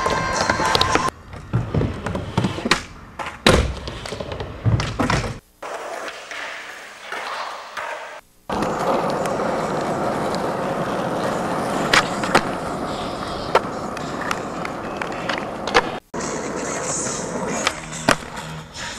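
Skateboard wheels rolling, and the board clacking sharply as it snaps and lands, in several short cuts. The longest stretch is several seconds of steady rolling noise of the wheels on asphalt.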